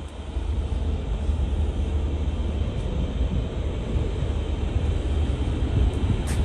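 Steady low roar on a car ferry's open deck, from the ship's machinery and wind buffeting the microphone, with a brief sharp tick near the end.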